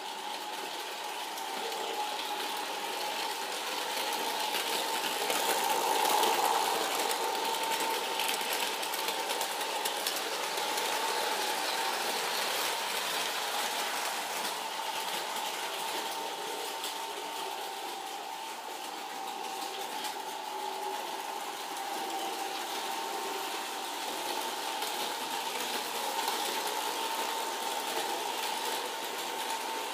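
Gilbert American Flyer 499 New Haven model electric locomotive running with its freight cars on S-gauge track. Its motor gives a steady whine over the clatter of wheels on the rails, loudest about six seconds in as the train passes close.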